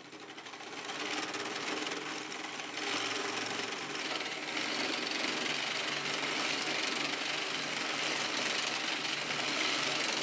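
3D-printed plastic pericyclic (nutating) bevel gearbox driven by a DC motor, running with a busy mechanical whir and rattle of the wobbling gear's meshing teeth. It builds up over the first second, then runs steadily, louder from about three seconds in.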